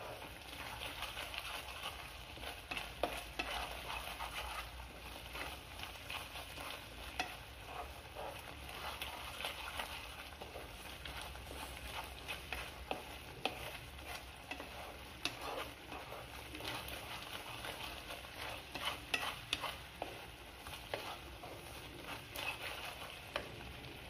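Jaggery syrup and grated coconut bubbling and sizzling in a nonstick frying pan while a wooden spatula stirs and scrapes it, cooking off the last of the water.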